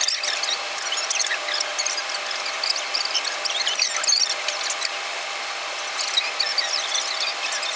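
Inflatable hot tub's air jets bubbling the water: a dense, steady fizz of many short, high-pitched bubble blips.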